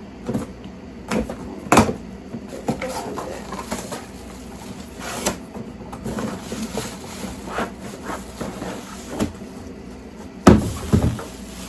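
Unboxing handling noise: a box, its packaging and a small bathroom trash can being handled, with scattered knocks, clicks and rustles. The loudest is a double knock near the end.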